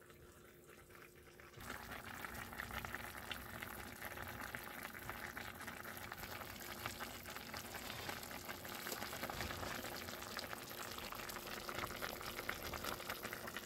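A pot of fish and cabbage simmering in broth on an electric stove: a steady crackling bubble that comes up about a second and a half in and keeps on, over a faint steady hum.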